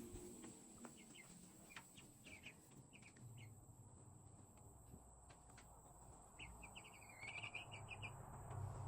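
Faint, scattered bird chirps, with a quick run of chirps near the end.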